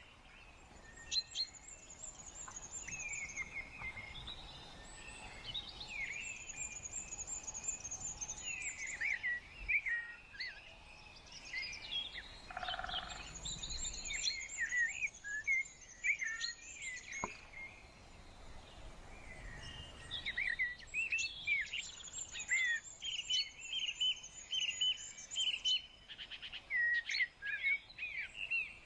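Several small birds singing and chirping together, with a high, thin trilled phrase that repeats every six or seven seconds among quicker chirps.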